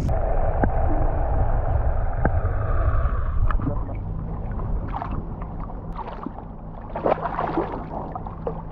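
Water splashing and lapping at the surface beside a boat, with a few sharper splashes between about five and eight seconds in, over a low steady rumble.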